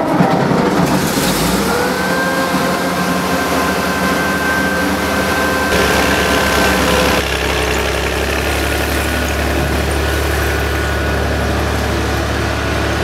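Menck M260 cable dragline's engine running steadily, with a faint high whine for a few seconds; about seven seconds in the low engine note shifts.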